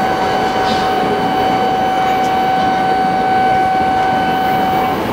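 A long steady whistle-like tone sounds over the noise of a crowded platform as a Hayabusa shinkansen pulls in. The tone stops shortly before the end.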